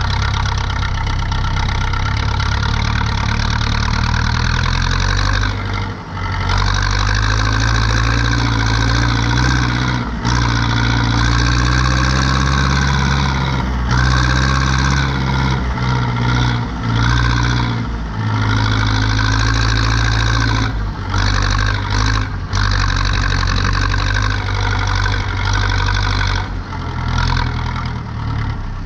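Zetor 7245 tractor's four-cylinder diesel engine running steadily under load while turning hay. Its note drops briefly several times and then picks up again.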